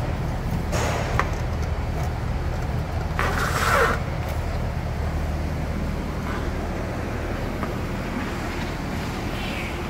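Short scrapes and rustles of a gloved hand brushing dried mud and dry grass out of a spare tyre, the loudest about three seconds in, over a steady low background hum.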